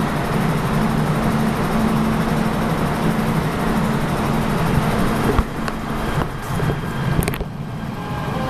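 MTR K-Train electric multiple unit accelerating out of an underground platform, a loud steady running noise behind the platform screen doors. About five seconds in the noise falls away as the last car clears, with a few sharp knocks.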